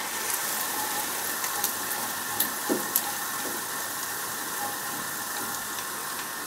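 Hot oil in a cast iron pan hissing steadily as a fried selroti (rice-flour ring bread), now cooked, is lifted out with metal tongs, with a few light clicks.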